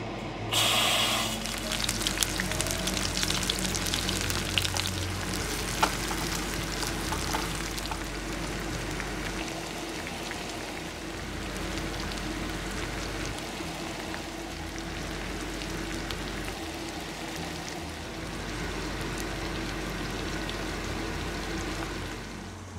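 Sliced onions and green bell peppers sizzling and crackling as they fry in hot oil in a nonstick pan. A loud burst of sizzle comes about half a second in, then a steady crackle that eases off somewhat later.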